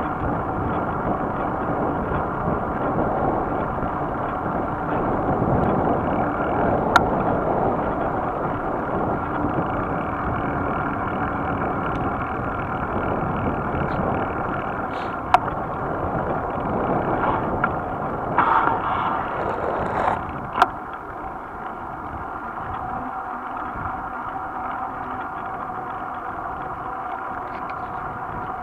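Steady rush of wind over the microphone and tyre noise from a road bicycle riding at speed on wet asphalt, with a few sharp clicks along the way.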